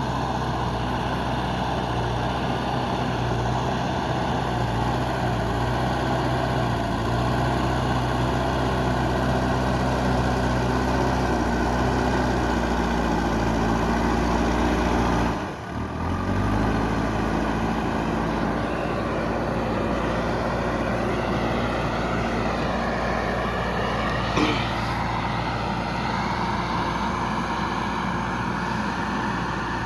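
JCB 3DX backhoe loader's diesel engine running steadily while working, its pitch shifting up and down a few times as the revs change. A single short knock about two-thirds of the way through.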